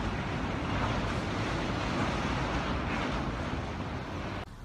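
Strong wind buffeting the microphone over rough harbour water, a steady rushing noise that cuts off suddenly near the end.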